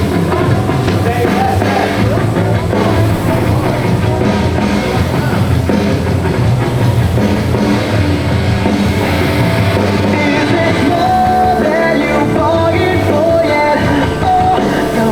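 Loud rock music with singing and a drum kit, played steadily throughout.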